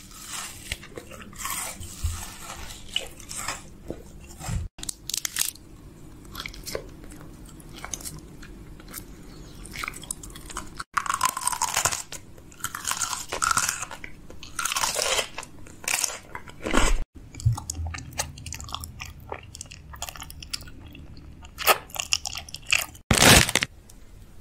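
Close-miked eating sounds: a string of crunchy bites and chewing of candy and snacks, crackling and clicking close to the mouth, changing abruptly every few seconds.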